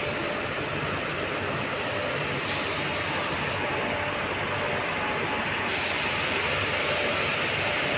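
WAP-4 electric locomotive hauling a passenger train as it departs and passes close by: a steady rumble of wheels and running gear with a continuous hiss.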